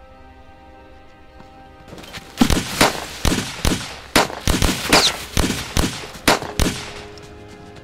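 A rapid, irregular volley of about a dozen loud gunshots, two or three a second, starting about two seconds in and stopping about two seconds before the end, over a soft music score.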